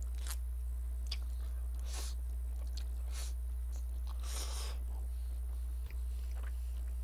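A person slurping and chewing a mouthful of Chapagetti instant black-bean noodles: a few short, wet slurps, with longer ones about two seconds in and around four and a half seconds. Under it runs a steady low hum.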